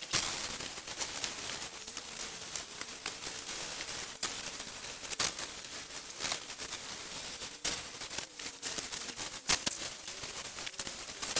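High-velocity dog dryer blowing air through its hose into a standard poodle's coat: a steady rush of air with a faint wavering motor hum and scattered crackles.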